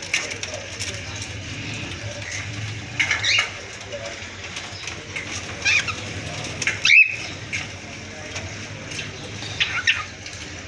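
Cockatiels chirping and calling in an aviary: short, gliding, high calls every few seconds, the sharpest about seven seconds in. A low steady hum runs underneath.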